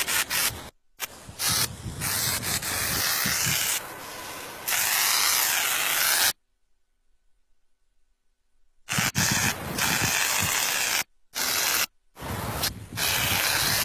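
Aerosol spray-paint can hissing in on-and-off bursts as a signature is sprayed, each burst starting and stopping sharply. The longest burst lasts about four seconds, and after a silent pause of about two and a half seconds in the middle, shorter bursts follow.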